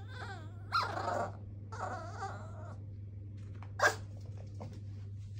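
Yorkshire terrier puppy whining for attention in three wavering cries, then one short, sharp yip about four seconds in.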